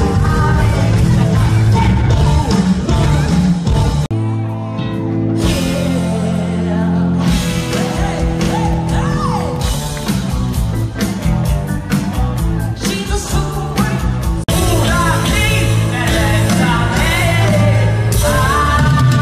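Rock music from a live band with drums and guitar, a voice singing over it. The music changes abruptly about four seconds in and again about fourteen seconds in.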